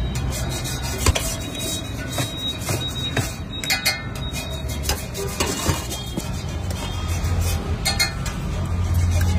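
Stainless steel ladle and plates clinking in quick, scattered knocks as food is dished onto a steel thali, over a low steady rumble, with music playing.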